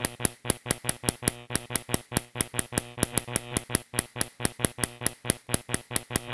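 Spark gap fed by a TV flyback coil and a homemade Leyden jar capacitor, snapping in sharp discharges about four times a second over a steady buzz. It stops abruptly at the end.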